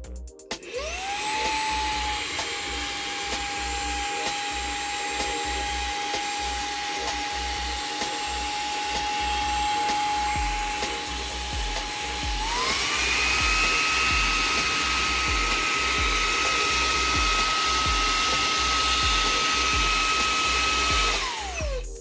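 Xiaomi Mi Vacuum Cleaner Mini handheld vacuum switched on: its motor spins up to a steady whine, steps up to a higher, louder speed (its second, stronger suction mode) about twelve seconds in, then winds down as it is switched off near the end.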